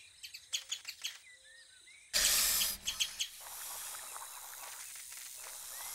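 Cartoon forest sound effects: soft bird-like chirps, then about two seconds in a sudden rush of noise lasting under a second, followed by a long, softer hiss as an animated snake slides along a branch into a tree hole.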